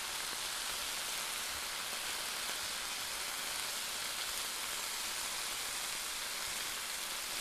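Thin strips of pork sizzling steadily in a hot electric skillet as they brown.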